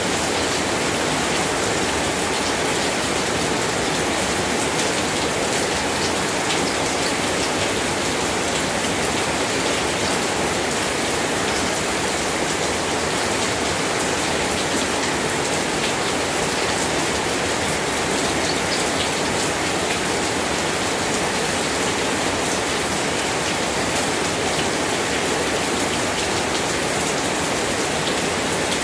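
Steady rain falling: an even hiss with scattered faint ticks of individual drops.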